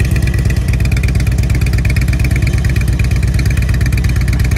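Motorcycle engines idling close by: a steady, loud, rapidly pulsing exhaust rumble.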